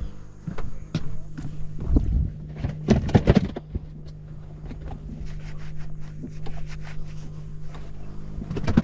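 Knocks and thumps of handling on a fiberglass bay boat, loudest about two to three and a half seconds in and again near the end, over a steady low hum.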